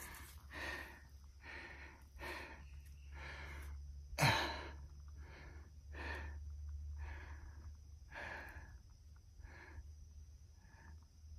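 A man breathing hard, about one breath a second, with one louder exhale about four seconds in: out of breath from spinning a hand drill for friction fire.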